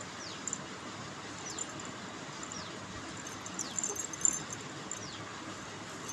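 Quiet room with a steady background hiss and a faint, high, falling chirp repeating about once a second.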